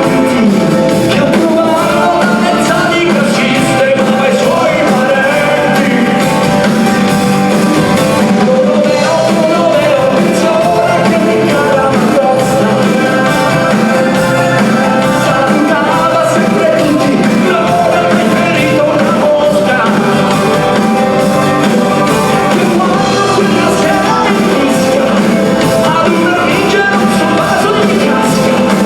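Rock band playing live, loud and continuous, with a singer's voice over the band.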